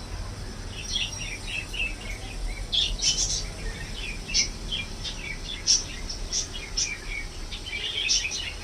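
Small birds chirping repeatedly in short, scattered calls, over a steady low hum.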